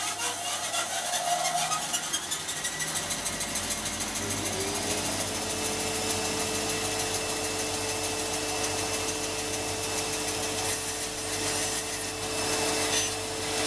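Startrite 401E bandsaw running and cutting through a laminated wood blank on a circle-cutting jig, a steady sawing noise. A steady hum joins it about four seconds in.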